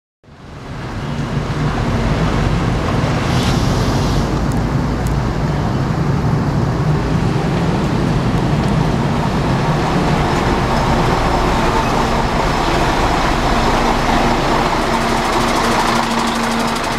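Mercedes-Benz OC 500RF 2542 double-decker bus's rear-mounted diesel engine running steadily at idle, fading in at the start.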